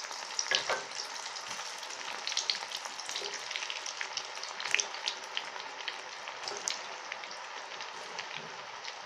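Bread-wrapped potato balls deep-frying in hot oil in a small pan: a steady sizzle with frequent sharp pops and crackles.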